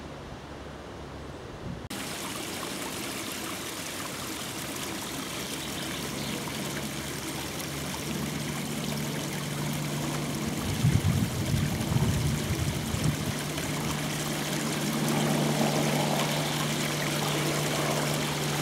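Steady rush of running water that starts abruptly about two seconds in, over a faint low hum, with a few low rumbling thumps near the middle.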